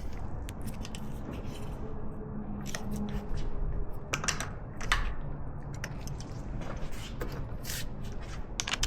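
Scattered light metallic clicks and scrapes as an Allen-head frame-slider bolt is snugged up by hand into the motorcycle's motor mount, over a low steady hum.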